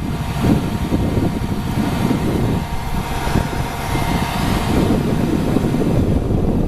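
A motor vehicle running: a steady low rumble with a faint steady hum above it.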